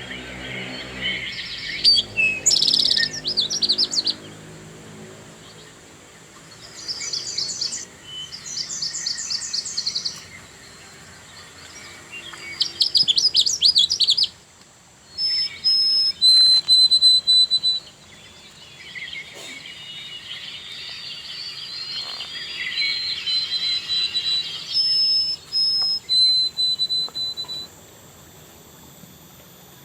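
Small songbirds chirping and singing in bursts of fast, high trills, then several long, thin, high whistled notes, each held steady.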